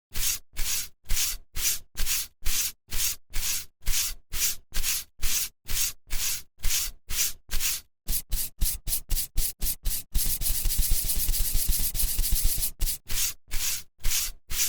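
Cartoon sound effect: a steady run of short, hissy scraping strokes, about two or three a second. Past the middle they speed up into a rapid, almost continuous scrape, then slow back to the earlier pace near the end.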